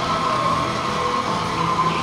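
Model railway layout running: a steady whirring hum of small electric motors, with several even, unchanging tones.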